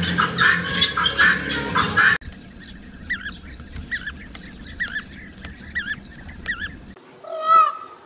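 A flock of helmeted guinea fowl cackling loudly, cut off about two seconds in. Then a European bee-eater gives a run of short repeated calls, and near the end an Indian peacock gives one loud call.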